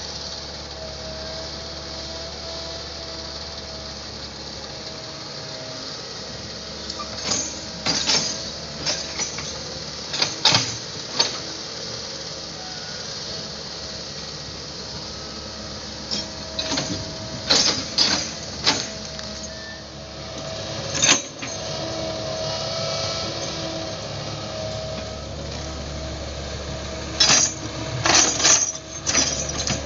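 Excavator engine and hydraulics running steadily with a held whining tone, broken by several bursts of sharp knocks.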